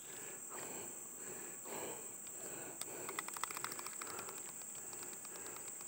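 Faint riverside ambience with a steady high-pitched insect drone. A quick run of soft clicks comes about three seconds in.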